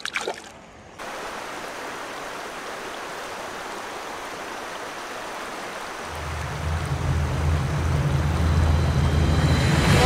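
A released small fish splashes back into the water at the start, then a steady rush of shallow creek water running over a rocky riffle. From about six seconds in, a low rumble joins in and grows louder.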